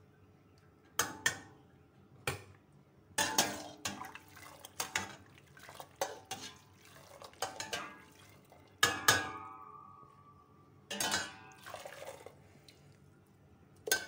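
Perforated stainless steel skimmer clinking and scraping against the inside of a stainless steel pot as boiled wheat gluten strips are scooped out of the water, in irregular knocks starting about a second in. One louder knock, about two-thirds through, leaves a metallic ring for about a second.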